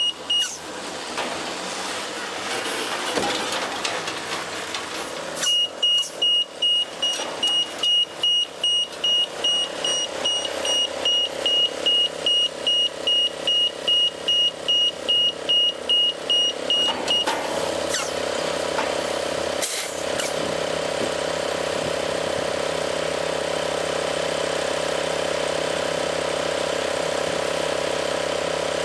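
Semi-truck backing a container trailer: its reverse alarm beeps about twice a second over the diesel engine running, and the beeping stops about two-thirds of the way through. A short sharp burst follows a couple of seconds later, after which the engine idles steadily.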